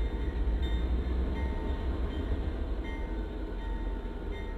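Diesel freight train rumbling steadily at a distance as it pulls into a siding.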